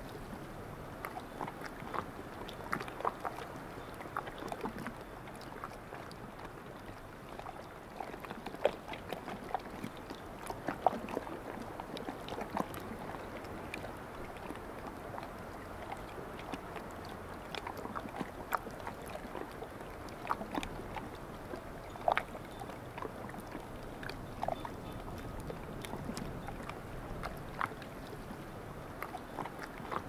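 Calm sea lapping at the shore: a steady wash of water with many small splashes and clicks scattered through it.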